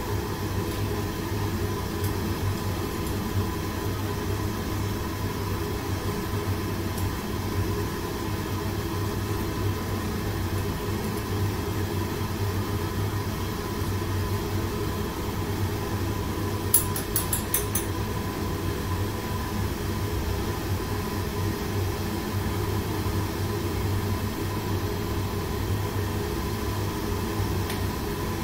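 Steady drone of a commercial kitchen's gas wok range burning under a large pan, together with the ventilation fan, with a constant low hum. A quick run of light clicks comes about 17 seconds in.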